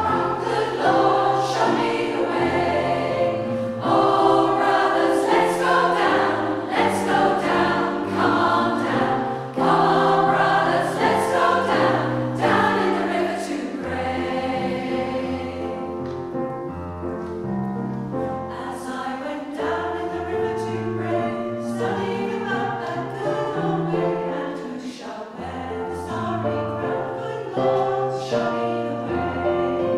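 Community choir singing a traditional American song in several parts. It grows softer about halfway through, then builds again near the end.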